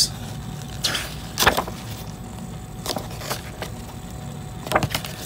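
Paper pages of a CD lyric booklet being turned and handled: several short paper rustles and flicks, around a second in, again about halfway, and a quick cluster near the end, over a faint steady low hum.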